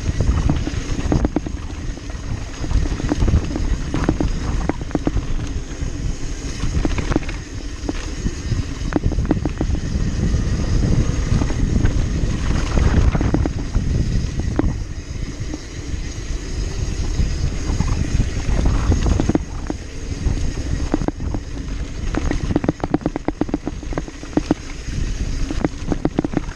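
Mountain bike riding fast down a dry, bumpy dirt trail: steady wind noise on the microphone over tyres rolling on dirt and gravel, with frequent rattles and knocks from the bike over bumps.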